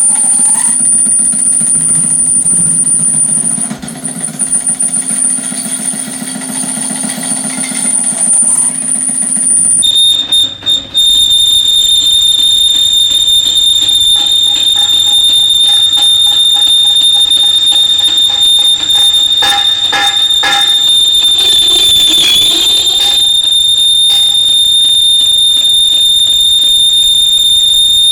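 A workshop machine running with a steady high-pitched whine over a low hum. About a third of the way in the sound changes abruptly to a louder, shriller whine with rapid clicking.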